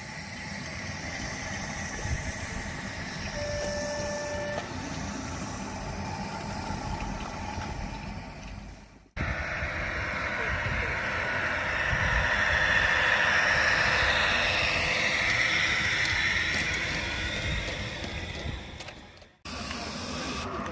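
A small 16mm-scale live-steam garden-railway locomotive running, with a steady hiss of steam that swells for a few seconds in the middle. The sound breaks off briefly twice. A short steady tone sounds about three and a half seconds in.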